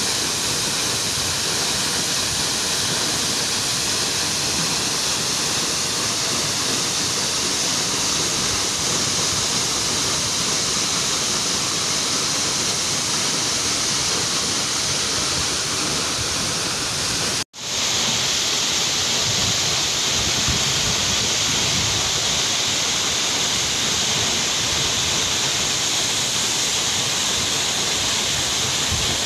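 Steady rush of a tall waterfall, about 30 metres high, pouring into a rocky plunge pool. The sound drops out for an instant a little over halfway through and comes back slightly brighter.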